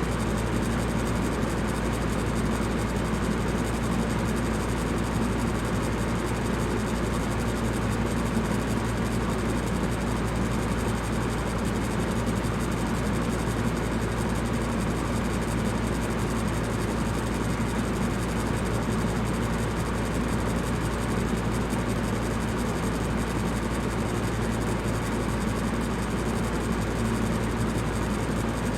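Electric fan running steadily: an even whoosh of moving air with a low, constant hum.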